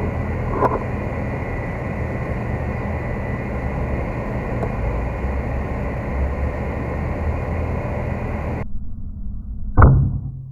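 Strong wind buffeting the microphone, cutting off abruptly near the end. About a second later comes a single sharp shot from a suppressed FX Impact M3 PCP air rifle.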